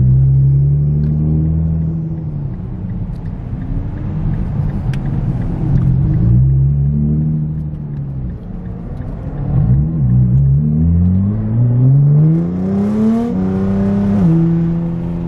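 Nissan GT-R R35 twin-turbo V6 heard from inside the cabin, on and off the throttle. About ten seconds in, the engine pitch climbs steadily under acceleration, then drops sharply twice near the end as it shifts up.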